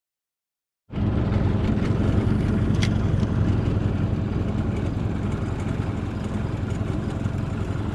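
A boat's outboard motor running steadily under way, with a low, even hum. It starts abruptly about a second in, after dead silence.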